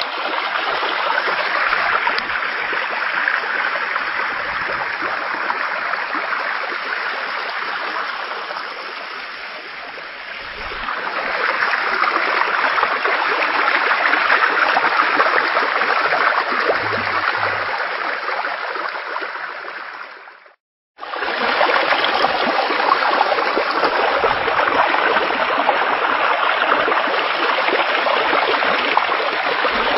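Floodwater rushing through a breach in a railway embankment: a steady, loud rush of churning water. It dips a little about a third of the way through and cuts out completely for a moment about two-thirds through.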